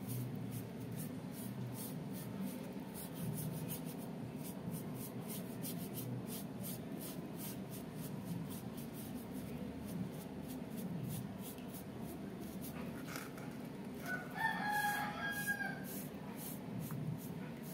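Short scratchy strokes of a paintbrush spreading liquid Aquaproof coating over foam armor pieces, over a steady low background noise. About fourteen seconds in, a rooster crows once for about a second and a half, the loudest sound.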